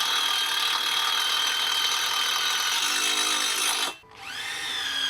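Electric drill running steadily with a high whine as it drives a screwdriver bit into a steel plate. About four seconds in it cuts out briefly, then spins back up.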